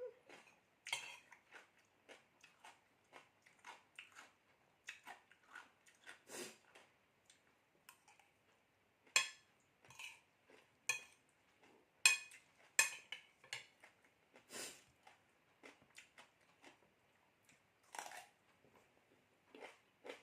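Close-up crunching and chewing of crisp papaya salad, with some small clicks of cutlery on a dish. The crunches come irregularly, with a few louder bites about nine and twelve seconds in.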